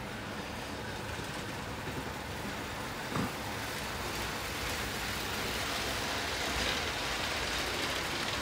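Hornby Live Steam model locomotive Papyrus hauling a long rake of coaches around the track: a steady rushing hiss and rumble of steam and rolling wheels, growing a little louder as the train comes closer. A brief knock comes about three seconds in.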